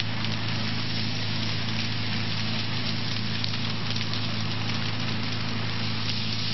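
Large test fire burning under a chairlift haul rope, crackling and hissing steadily over a constant low hum.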